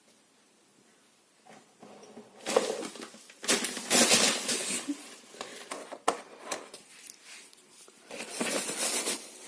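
Irregular rustling, crinkling and scraping of hands working plastic plant pots and potting compost while seedlings are potted on. It starts about two and a half seconds in, after a quiet start.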